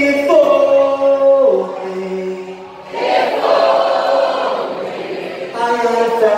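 A crowd singing along with a rock band's vocalist at a live acoustic show, many voices together in long held notes. The singing drops off briefly a little before halfway, then resumes.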